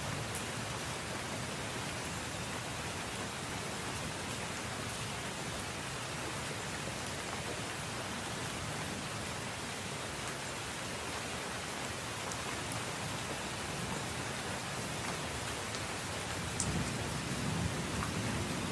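Steady rain falling on leaves: an even hiss with scattered ticks of single drops. A low rumble swells briefly near the end.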